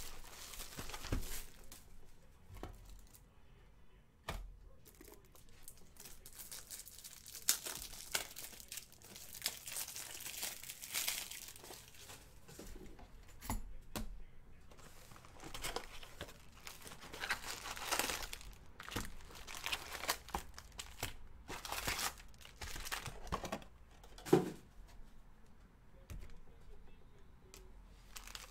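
Plastic wrapping and foil trading-card packs crinkling and tearing, with small knocks of handling, as a 2018 Bowman Draft Jumbo box is opened and its packs are pulled out and stacked on the table. A sharper knock comes about three-quarters of the way through.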